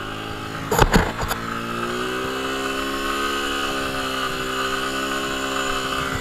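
Motorcycle engine revving hard under load as the bike is ridden through deep loose sand, its revs climbing and then held high while the rear tyre slips. A few sharp knocks about a second in.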